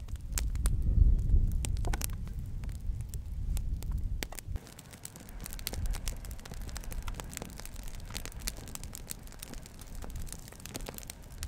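Wood campfire crackling over a low rumble, with sharp scattered pops. About four and a half seconds in the sound changes abruptly to a quieter bed of fine, dense crackles and ticks.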